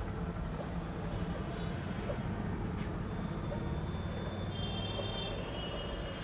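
Epson L3150 ink-tank inkjet printer running a colour copy job: its feed and print-head carriage motors make a steady mechanical hum, and a thin higher whine joins about four and a half seconds in.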